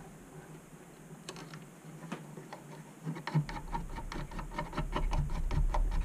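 Small, quick clicks and ticks of fingers twisting a screw-down wire terminal cap on an H&M Duette controller to clamp a looped wire. The clicks are sparse at first and come thick and fast from about halfway through, over low handling bumps.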